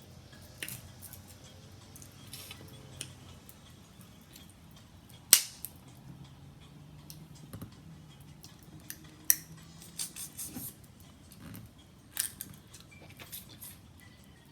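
Snow crab leg shells being cracked and snapped apart by hand: scattered sharp cracks and clicks, the loudest about five seconds in and another about nine seconds in, with a cluster of smaller snaps after ten seconds.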